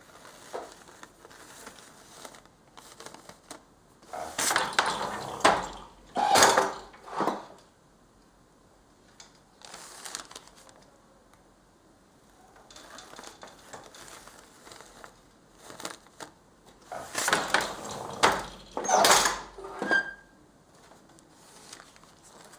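Hand weaving on a loom with paper in the weft: paper rustling and crinkling, broken by two bouts of louder clattering from the loom about twelve seconds apart.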